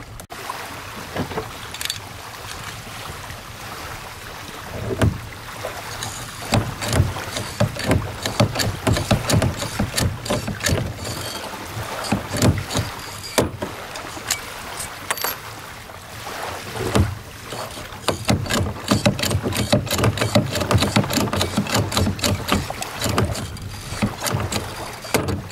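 Hand pop-rivet tool squeezed over and over, its jaws clicking and knocking as it pulls blind rivets to fix a metal foot to a plastic kayak deck. The clicks come in irregular clusters over a steady hiss.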